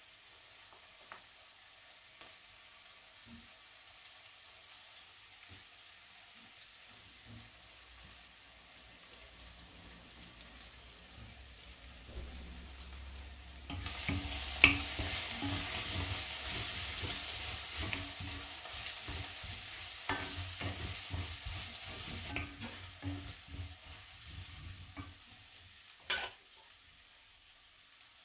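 Sliced onions frying in an enamelled cast-iron pot, stirred and scraped with a wooden spoon. The sizzle is faint at first, grows much louder about halfway through, then dies down, with a few sharp knocks of the spoon against the pot.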